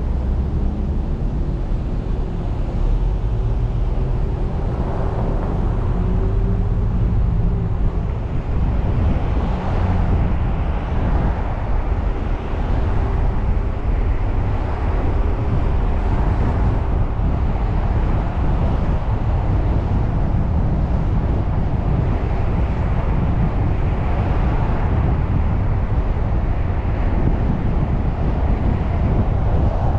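A car driving along a city street: a steady low rumble of tyres and engine, swelling and easing every few seconds.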